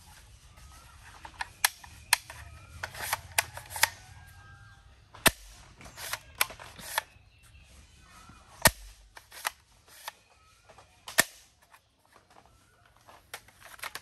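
Plastic toy gun being handled and clicked: a run of sharp plastic clicks and snaps, busiest in the first few seconds, with single louder snaps about five, nine and eleven seconds in.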